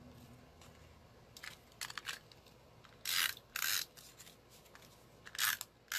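Cardstock being worked by hand: several short, scratchy paper strokes, the two strongest about three seconds in.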